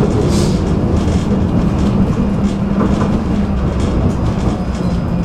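Tram running along its track: a steady rumble of wheels on rails with a low hum and occasional clicks as the wheels pass over rail joints.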